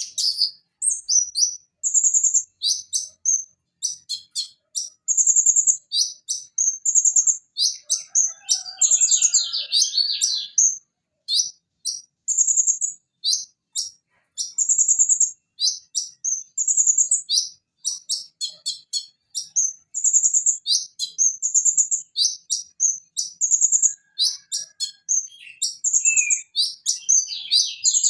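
Van Hasselt's sunbird (kolibri ninja, Leptocoma sperata) singing a fast, high-pitched song of sharp chirps and short trills, phrase after phrase almost without pause.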